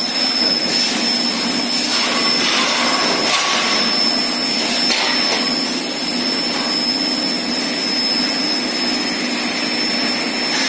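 Square-tube induction quenching line running: a steady industrial hiss and hum with a constant high-pitched whine over it, and a few faint knocks.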